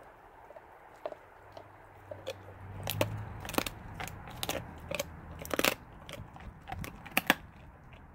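Blue Bay Shepherd chewing a raw turkey carcass, his teeth crunching and cracking the bone in a run of sharp, irregular cracks that grow louder and denser after about two seconds.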